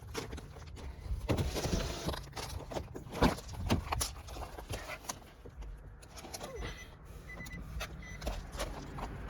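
Scattered clicks and knocks of keys and handling at the car. From about six seconds in, a faint repeating tick that fits the Nissan Maxima's turn-signal flasher being switched on.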